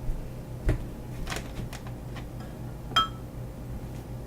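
A few light knocks and taps of kitchen items being handled, with one short ringing clink about three seconds in.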